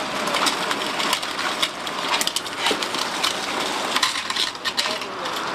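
Irregular clinks and scrapes of hand tools working on wrecked cars and crash debris, over a steady background rush.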